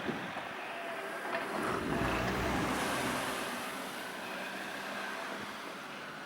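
Heavy vehicle's engine rumbling under a steady rushing noise, swelling louder about two seconds in and then easing off.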